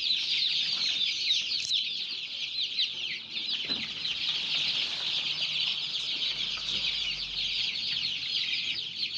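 A flock of 17-day-old joper chicks peeping without a break, many short, high, falling cheeps overlapping one another.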